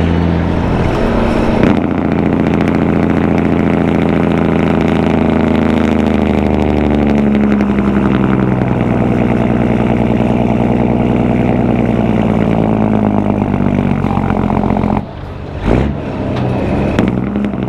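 Caterpillar 3406E diesel truck engine under load, running through 6-inch stacks and an Aero Turbine 5050xl muffler. Its note climbs steadily for several seconds, then drops back and holds steady. Near the end the sound falls off sharply, with a short burst, then picks up again.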